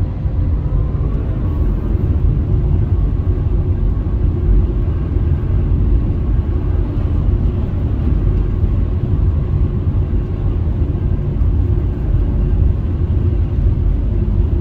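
Steady low rumble of a car driving at highway speed, heard inside the cabin: road and tyre noise with engine hum.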